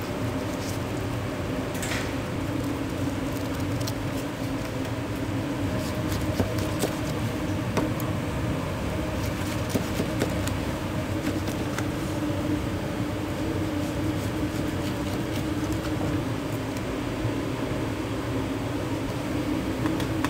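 Steady kitchen ventilation hum, with scattered small clicks and taps, a few of them louder near the middle.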